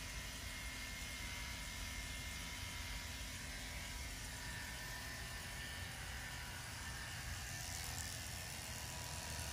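Electric hair clippers running with a steady buzz, cutting the hair short on the back of the head to clear the donor area.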